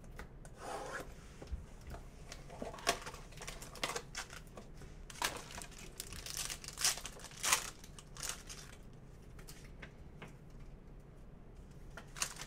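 A trading card box and its pack being opened by hand: cardboard and a pack wrapper rustling and tearing in short irregular bursts, with cards rubbing against each other as they are slid out.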